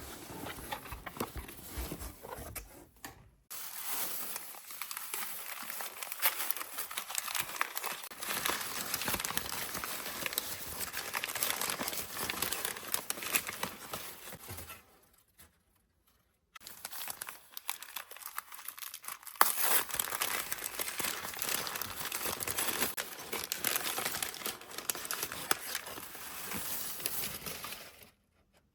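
Packing material crinkling and crumpling as it is handled, with two brief breaks where the sound cuts out.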